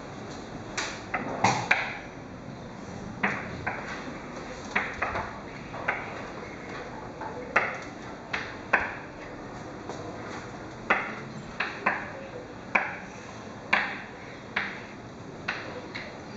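Two pieces of chalk writing numbers on a chalkboard: sharp, irregular taps, about one or two a second, over a steady low room noise.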